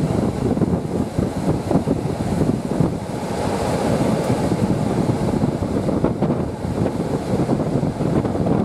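Wind buffeting the microphone at the open window of a moving passenger train, over the steady noise of the coach running along the track.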